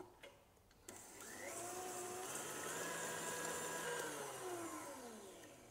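KitchenAid Artisan stand mixer's motor, beating eggs and sugar with the whisk. After a click of the speed lever it spins up about a second in, runs steadily at high speed, then winds down with falling pitch near the end.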